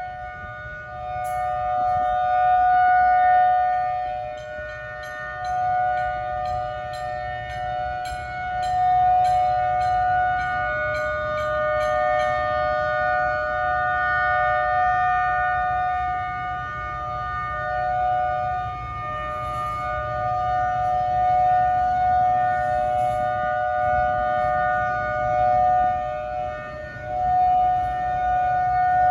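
Outdoor tornado warning siren sounding a steady two-note tone during a test. Its loudness swells and fades about every six seconds.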